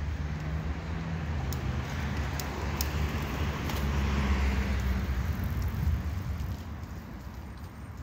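Road traffic: a steady low rumble, with a vehicle passing that swells to loudest about halfway through and then fades away.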